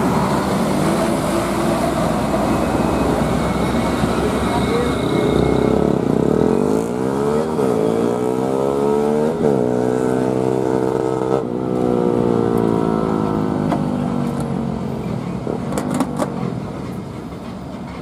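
Heavy road traffic passing close by: truck engines and tyres, with one vehicle sweeping past from about six to fourteen seconds in, its sound rising and falling as it goes by. A few light clinks near the end.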